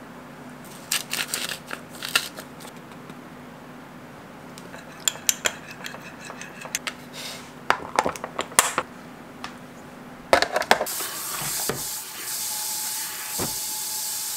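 A metal spoon clinking against a small glass bowl, and plastic containers knocking and clicking shut on a counter, as scattered sharp taps. About eleven seconds in, a kitchen tap starts running steadily into a stainless-steel sink while dishes are washed.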